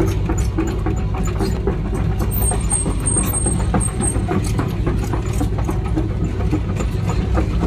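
Small excavator's diesel engine running steadily, heard from inside the cab, with light rattling.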